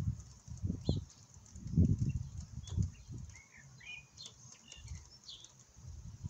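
Small birds chirping in short, scattered calls, most of them in the middle stretch, over low, gusty rumbling that comes and goes and is loudest about two seconds in.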